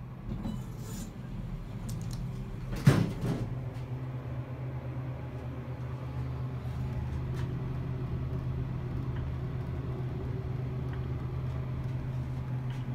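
Elevator doors closing with a single sharp clunk about three seconds in, then the Westinghouse traction elevator car travelling down with a steady low hum.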